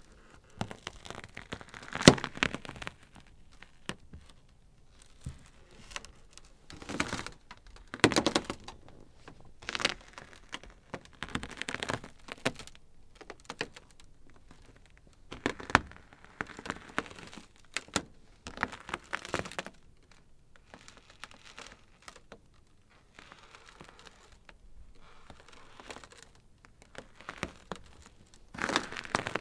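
Ice crackling: irregular bursts of sharp cracks and snaps, bunched in clusters with quieter stretches between, the loudest crack about two seconds in.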